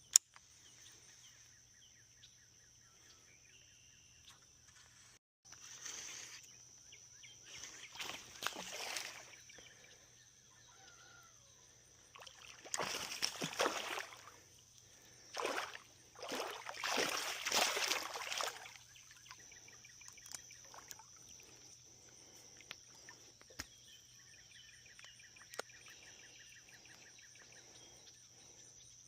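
Outdoor ambience by the water: a steady high-pitched insect drone, with water sloshing and splashing in several bursts of a second or more in the middle.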